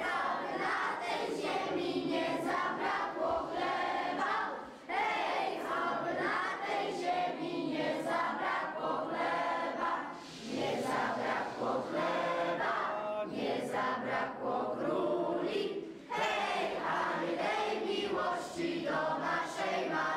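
A group of children singing a song together, in long phrases with short pauses between them.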